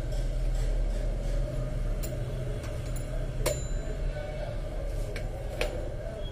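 A twin-bell alarm clock being handled and turned over on a workbench: a few sharp clicks and knocks, one followed by a short high ring, over a steady low hum.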